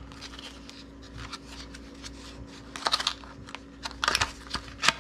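Clear plastic blister pack being handled and prised open: irregular clicks and crackles of the stiff plastic, busier about three seconds in and again near the end.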